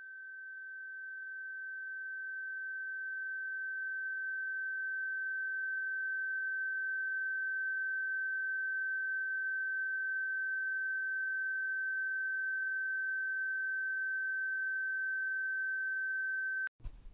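A steady, high-pitched electronic tone with a fainter lower tone beneath it, swelling up over the first few seconds and then holding unchanged before cutting off suddenly near the end; a short low thump follows at the very end.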